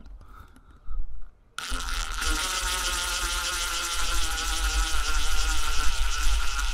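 Power drill driving a self-drilling screw through sheet metal, cutting its own hole. The motor starts about one and a half seconds in and runs on as a steady whine.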